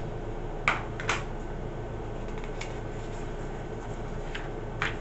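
Handling a plastic kit part and the paper instruction sheet: a few short sharp clicks and knocks, two about a second in and another near the end, with light paper rustling as the page is turned, over a steady low room hum.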